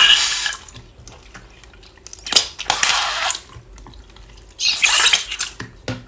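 Wet squelching and bubbly crackling from nano-sponge cubes soaked in clear 'fake water' slime being squeezed by hand, in three squeezes about two and a half seconds apart.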